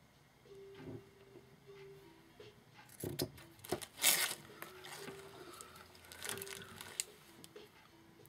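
Hands working with lace trim and craft tools: scissors snipping, scattered clicks and knocks, and a loud rustle about three to four seconds in as tools are set down and picked up.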